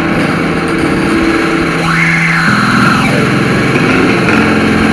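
Electronic synthpop made with the ANS3 and Factory synthesizer apps on an iPad. A hissy, noisy texture lies over held low synth notes, which change pitch twice. Around the middle a high tone swoops up and then slides back down.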